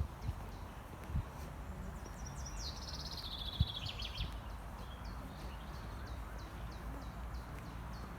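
Small songbirds: one repeats a short, high, falling chirp about three times a second, and another sings a quick high trill about three seconds in. Under them runs a steady low rumble, with two soft thumps.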